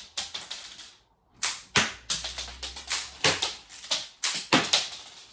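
Irregular run of sharp plastic clicks and clacks, several a second, as K'nex pieces of the toy gun are handled and snapped.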